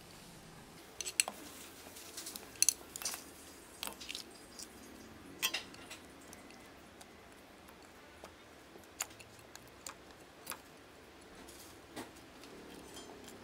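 Raw crab pieces, octopus and shrimp being laid by hand into a stainless steel pot over sliced corn and carrots: scattered hard clicks and taps of shell and hand against the pot, the loudest about two and a half seconds in.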